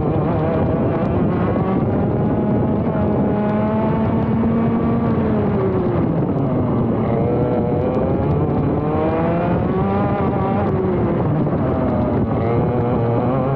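ROK GP Junior 125cc two-stroke kart engine heard onboard at racing speed, climbing through the revs, dropping away off the throttle and climbing again several times over a lap's worth of driving.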